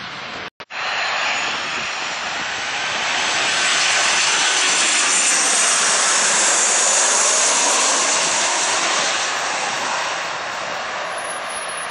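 Boeing 737 jet passing low overhead on final approach with gear down. Its engine noise, with a high whine, swells to a peak mid-way, then fades as it moves off. There is a short dropout about half a second in.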